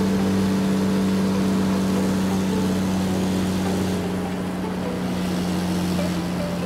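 Truck engine running steadily, a low even drone that does not change in pitch or level.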